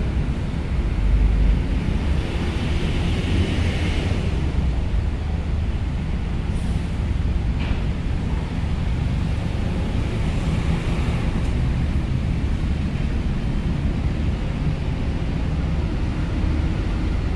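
Vehicles driving off a ferry's loading ramp during unloading: a steady low rumble of engines and tyres with no distinct events.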